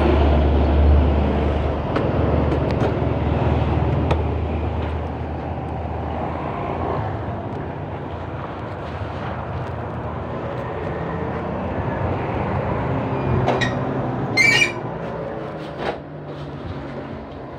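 A small motor scooter engine idling with a low hum for the first couple of seconds, then dying away, leaving steady outdoor background noise. A short sharp noise sounds about fourteen seconds in.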